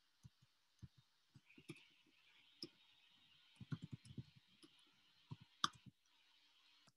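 Faint computer keyboard keystrokes clicking as code is deleted and typed: a few scattered key presses, then short runs of quick clicks about four seconds in and again near the end.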